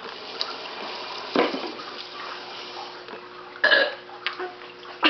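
People belching on purpose in a burping contest: a short burp about a second and a half in, then a louder one near the end.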